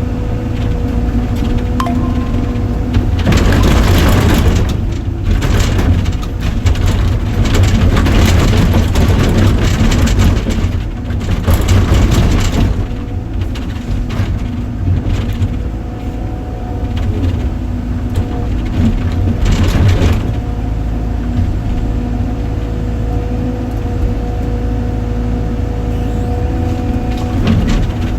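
Heavy machine's engine running with a steady low rumble and a faint whine, with stretches of loud rushing, clattering noise from about three to thirteen seconds in and again briefly near the twenty-second mark.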